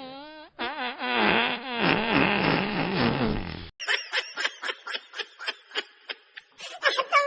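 Fart sound effect: a short falling blurt, then a long wobbling, buzzy fart lasting about three seconds that cuts off abruptly. Short bursts of stifled snickering laughter follow.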